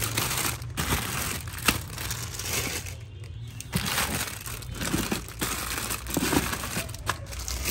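Plastic toy packaging crinkling and rustling as it is handled, with a few sharp clicks and knocks along the way.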